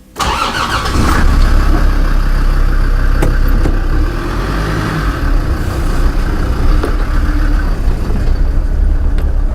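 Land Rover Defender's engine running while driving, a loud, steady low rumble mixed with road noise. It starts abruptly.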